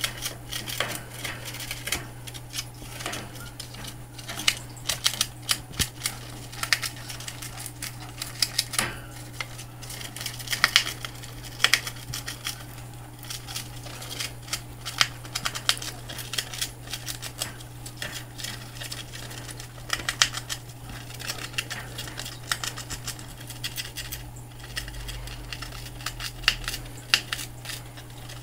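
Gerbil gnawing a cardboard toilet paper tube: rapid, irregular crunchy clicks in quick bursts, over a steady low hum.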